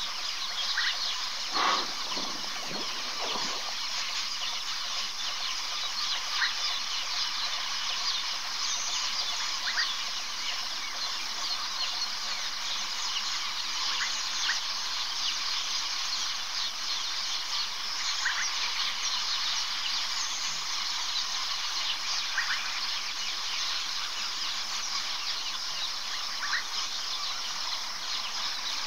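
Dense, steady chorus of insects, with short chirps scattered through it and a brief flurry of rougher, lower sounds about two seconds in.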